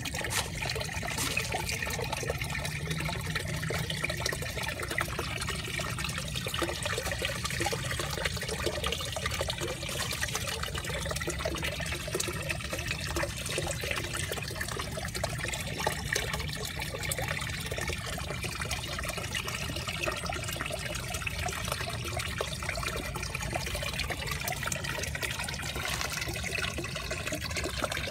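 Water trickling and splashing steadily in a koi pond, at an even level throughout.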